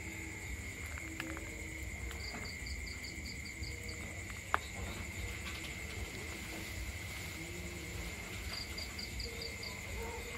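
Night insects, crickets, chirring steadily on a high tone throughout. Two short runs of rapid chirps, about five a second, come early and again near the end, with a single sharp click about four and a half seconds in.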